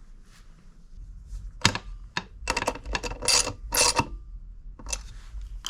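Metal hardware and tools clinking and rattling as bolts, washers and nuts are fitted to a metal hat bracket: a sharp click a little over a second in, then a run of short clattering bursts with a metallic ring in the middle, and a few more clicks near the end.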